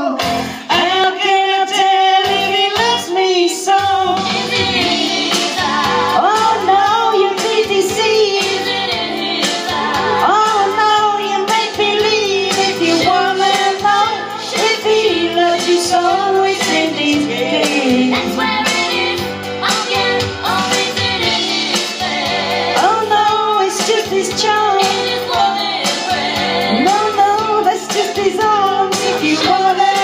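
Two women singing karaoke into microphones over a recorded backing track, their voices amplified through the room's speakers.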